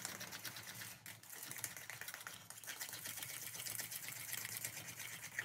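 A tint brush stirring whitening powder and volume 40 developer into a paste in a mixing container, in quick repeated scraping strokes. The paste is still grainy and not fully mixed.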